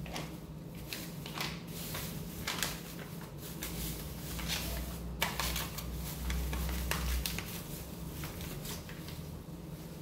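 Plastic bag crinkling and rustling in irregular bursts as it is handled. A steady low hum runs underneath.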